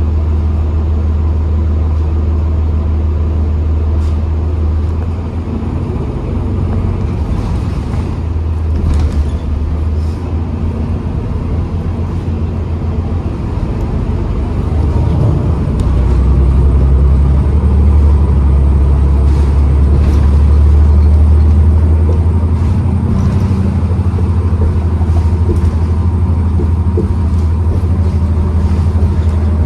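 A 2012 New Flyer XDE40 diesel-electric hybrid bus running, a steady low rumble with a faint steady whine above it, growing louder about halfway through. The whine is the weird winding sound this bus is known for.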